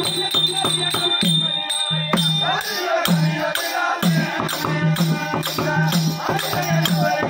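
Tamil therukoothu street-theatre ensemble playing: a drum beaten in a quick, steady rhythm with jingling metal percussion, over a held high tone; a wavering melody line comes in about two and a half seconds in.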